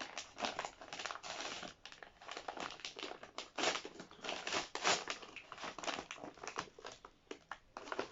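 Packaging being unwrapped by hand from a paperback book, crinkling and rustling in a rapid, irregular run of crackles.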